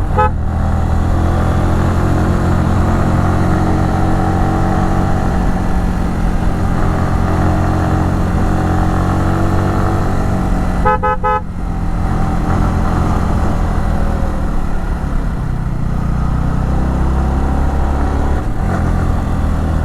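Yamaha R15 V3's 155 cc single-cylinder engine running steadily under load through bends, with wind rushing over the microphone. Right at the start, and again about 11 seconds in, a vehicle horn gives a few quick short toots as the engine briefly drops off.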